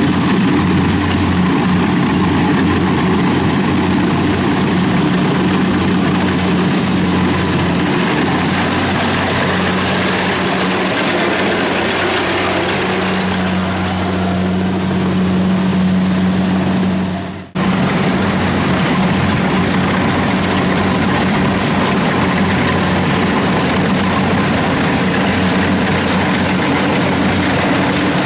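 Kubota DC-70 rice combine harvester's diesel engine running steadily under load while it cuts and threshes, with an even low hum. The sound cuts out for a moment about two-thirds of the way through.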